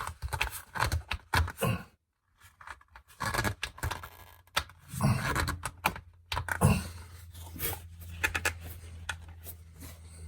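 A rag and hands rubbing, scraping and gripping on a spin-on oil filter, in a run of short irregular scratches and clicks. A low steady hum joins about halfway through.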